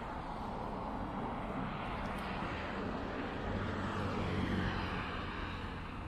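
Street traffic noise with a motor vehicle passing, its hum swelling and then fading about halfway through.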